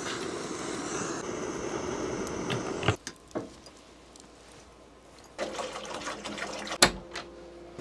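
Water poured from a large plastic bottle into a stainless steel pot, a rushing pour for about a second and a half, with a sharp knock near the end. Before it, a steady rushing noise cuts off suddenly about three seconds in, followed by a couple of light clicks.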